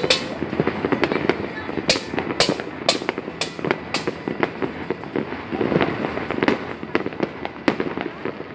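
Fireworks going off from many points at once: a constant background crackle with sharp bangs about every half second in the first four seconds, thinning out after, and a couple more near the end.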